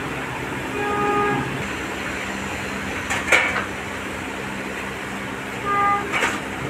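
Street traffic with two short vehicle horn toots, one about a second in and one near the end, over a steady hiss; a single sharp knock sounds about halfway through.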